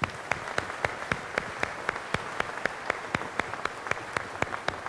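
Audience applauding, a dense patter of many hands with a few claps standing out sharply about four times a second.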